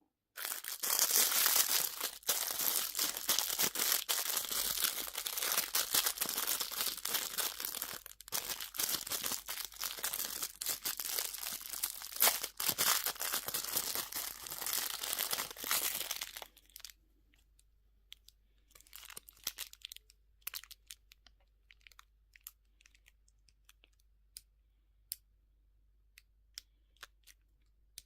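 Candy or toy wrapper being crinkled and torn open: a dense, continuous crackling that stops about sixteen seconds in, then scattered light taps and clicks.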